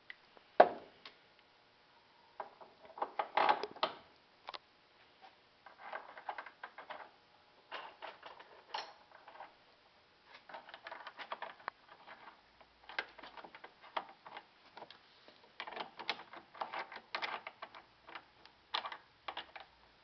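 Socket ratchet clicking in short runs every couple of seconds as a 19 mm socket tightens the bolt holding a bracket to the drill press base plate, with a sharp metal click just after the start.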